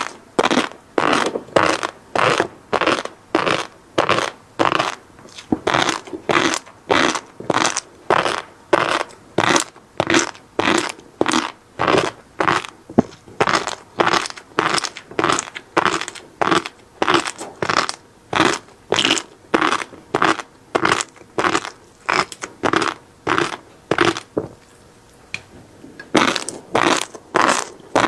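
Close-up chewing of flying fish roe (tobiko), the small grains crunching and popping in the mouth in a steady rhythm of about two chews a second, with a short pause near the end.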